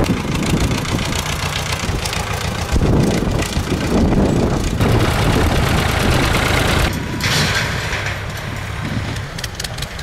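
Farm tractor engine idling steadily, with wind noise on the microphone and a short hiss about seven seconds in.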